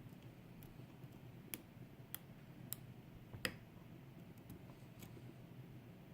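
Faint, irregular clicks of a lock pick working the sticky pins of a pin-tumbler challenge lock under tension, about six sharp ticks a half-second to a second apart.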